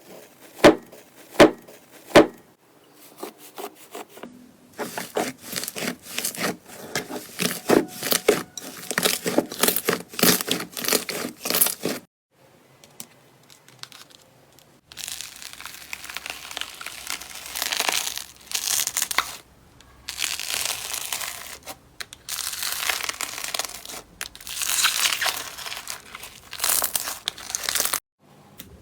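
Slime being handled close to the microphone. It starts with three sharp pops in the first couple of seconds, then a stretch of dense crackling pops, and, after a break, crinkling, rustling sounds.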